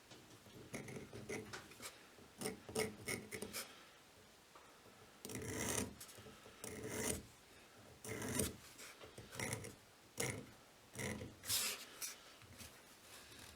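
Short scratchy strokes of a marking tool drawn along a ruler across a bar of square steel stock, coming in several groups with pauses between them as the layout lines are marked out.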